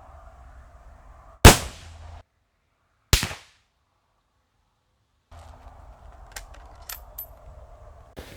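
Mosin-Nagant 91/30 rifle firing surplus 7.62x54R: one loud shot about a second and a half in with a short ringing tail, and a second sharp report about three seconds in. A few short sharp clicks follow near the end.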